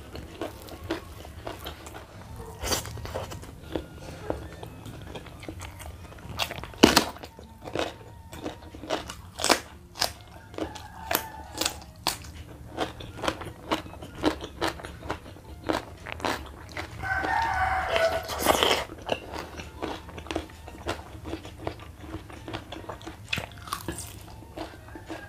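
Close-miked eating: many short, crisp crunching bites and chewing of hand-held food, with a brief tonal sound about two-thirds of the way through.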